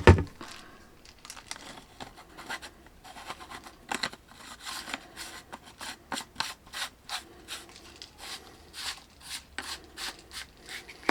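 Plastic shower-head parts being handled and fitted together by hand: irregular clicks, scrapes and rubbing, with a sharp knock at the start.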